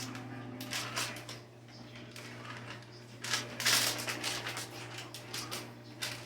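Kitchen handling noises: scattered clicks and rustling, with a louder crinkly rustle about three seconds in, over a steady low hum.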